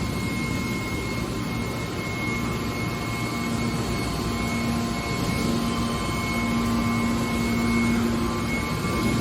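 Hydraulic scrap metal baler running: steady machine noise with a faint high whine, and a steady low hum that comes in about three and a half seconds in.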